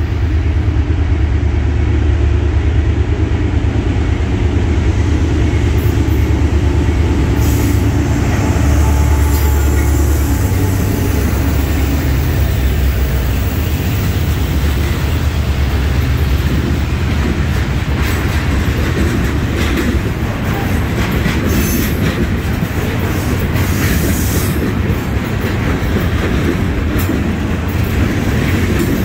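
Norfolk Southern freight train passing close by. The diesel locomotives' engines are loud for the first ten seconds or so, then a long string of loaded trash cars rolls past, wheels rumbling and clanking steadily on the rails.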